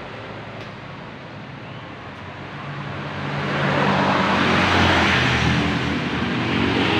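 A motor vehicle passing by on the road: its engine and tyre noise swell to a peak about five seconds in, over steady traffic noise.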